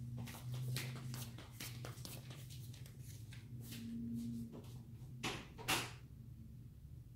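Footsteps in sandals on a tile floor walking away, a quick run of light clicks that thins out over the first few seconds, over a steady low hum. Two louder knocks come a little past halfway.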